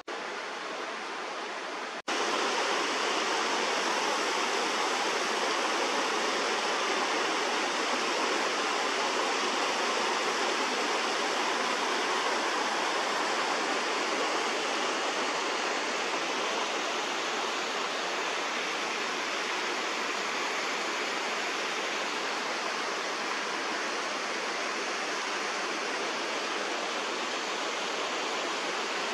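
A mountain creek rushing and cascading over rocks, a steady rush that jumps louder about two seconds in and then holds.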